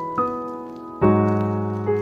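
Slow, gentle solo piano music: a single note struck shortly after the start, then a fuller chord with a low bass note about a second in, each left to ring and fade.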